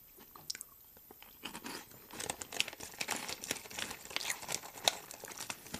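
Tohato Caramel Corn, a puffed corn snack, crunching as it is chewed in a series of short crackly crunches that thicken about two seconds in, mixed with the snack bag crinkling as a hand reaches into it.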